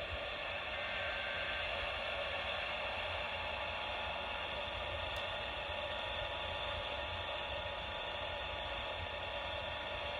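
Steady static and hiss from a weak, distant AM radio station, with faint steady whistle tones running through the noise.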